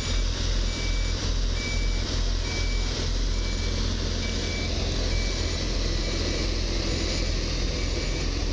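Dump truck's reversing alarm, a steady high beep repeating a little faster than once a second, over the low rumble of its diesel engine. The wash of an electric high-speed train pulling in runs underneath.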